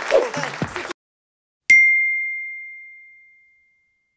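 Audience noise cuts off abruptly. After a short silence comes a single bright ding, an end-card sound effect, which rings on one tone and fades away over about two seconds.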